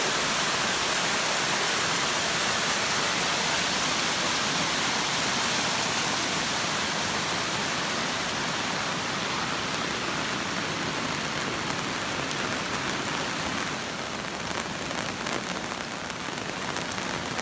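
Rain falling steadily as an even hiss that eases slightly toward the end, with a few sharp drop taps near the end.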